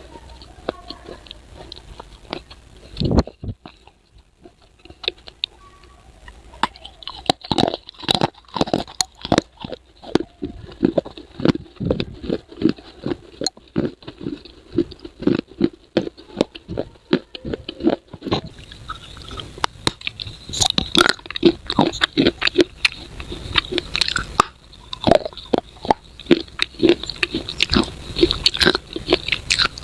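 Close-miked crunching bites and chewing of brittle baked clay pot pieces. There is one sharp knock about three seconds in, then a steady run of crunchy chews, several a second.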